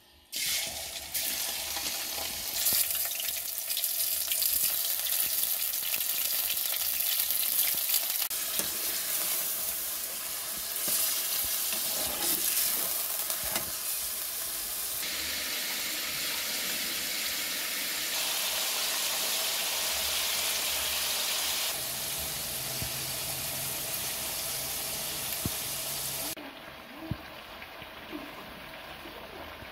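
Raw chicken pieces frying in hot oil in an aluminium pot: a loud, steady sizzle that starts suddenly as the meat goes in, with a metal spoon stirring and knocking against the pot. The sizzle drops much quieter near the end.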